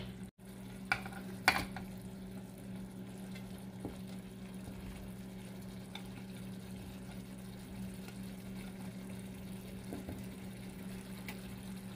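Tomato curry sauce simmering in a nonstick pan: a steady low bubbling over a constant hum, with a couple of sharp clicks about a second in.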